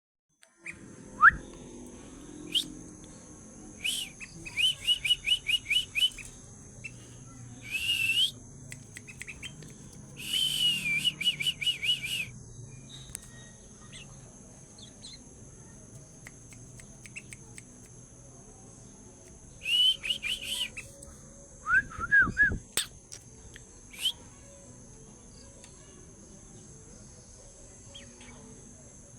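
Three-month-old sooty-headed bulbul (kutilang) singing in several short bursts of rapid repeated chirps, quieter for the last third, over a steady high insect drone.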